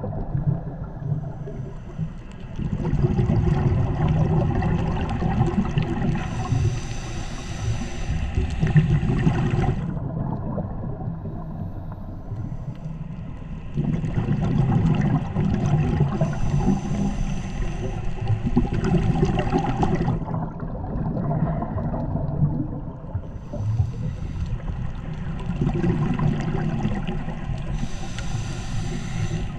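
Scuba diver breathing through a regulator underwater: bubbles gurgling and rumbling in slow breath cycles about ten seconds apart, with a higher hiss near the end of each.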